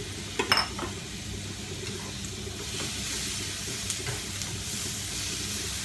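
Sliced tomatoes tipped from a bowl into a hot frying pan of onion and garlic in oil, with a few clinks of bowl and spatula about half a second in, then a steady sizzle as they fry and are stirred.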